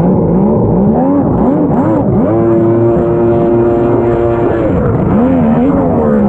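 Jet ski engine running under throttle, its pitch rising and falling several times, held steady for about two seconds in the middle, then dipping and climbing again near the end.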